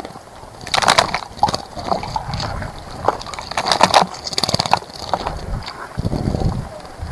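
Water splashing in a shallow bird bath as a bird bathes, in short bursts of splashes about a second in and again around four seconds in.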